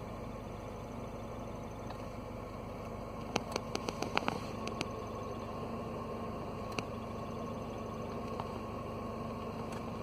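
Mercedes-Benz W202 C230 Kompressor idling in neutral with the clutch pedal released, its clutch release bearing, which is starting to fail, giving a steady squeak much like a squeaking belt over the engine hum. A quick run of light clicks comes about three to four seconds in.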